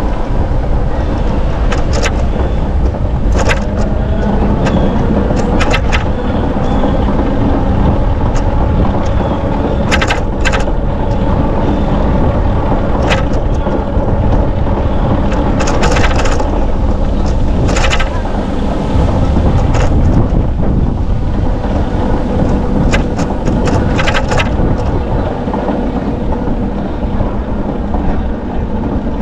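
Bicycle ride from the rider's position: a steady low rush of wind on the microphone and tyres rolling, with irregular sharp clicks and rattles from the bike.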